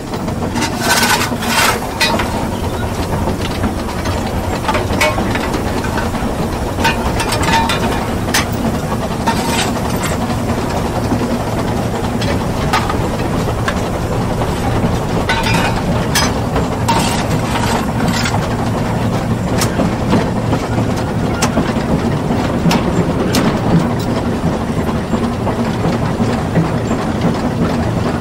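Narrow-gauge Talyllyn Railway train on the move: a steady rumble of wheels on track, with irregular sharp clicks and knocks scattered through it.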